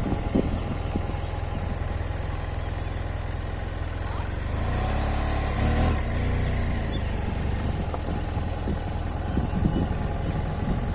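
Motorcycle engine running at idle, steady, briefly louder and higher about halfway through before settling back.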